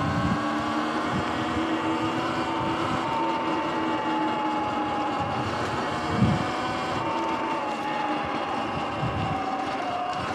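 Sur-Ron electric motorbike riding with its motor whine steady, its pitch dropping a little near the end, over tyre hiss on the wet road and wind on the microphone. A single thump about six seconds in.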